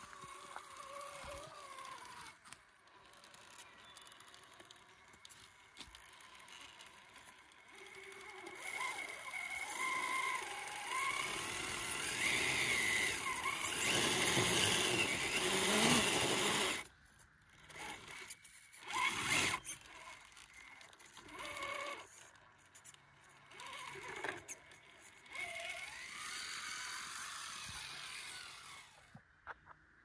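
Electric motor and gear drivetrain of a radio-controlled scale crawler whining, the pitch rising and falling with the throttle as it climbs over roots and rocks. It is loudest in a long stretch through the middle, cuts off suddenly, then comes back in short stop-start bursts.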